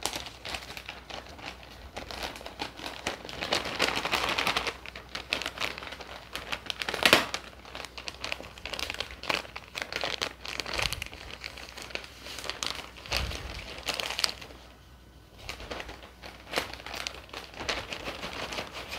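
Clear plastic bag crinkling and rustling as it is pulled off foam speaker isolation pads by hand, with a louder crackle about seven seconds in.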